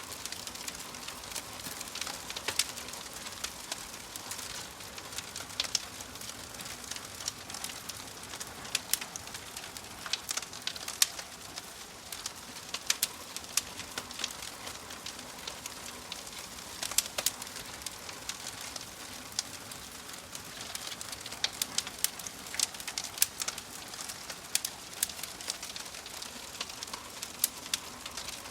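Fire crackling and burning: a steady hiss broken by many sharp, irregular pops and snaps.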